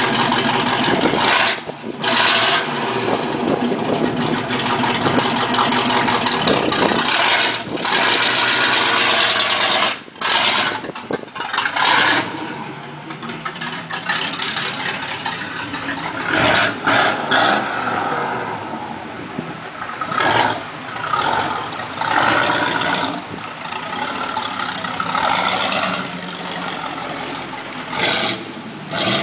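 1980 Camaro Z28's 305 V8 running loud through open headers with no mufflers, driven and revved, the sound dropping back sharply several times between pulls. It grows quieter in the second half as the car moves away.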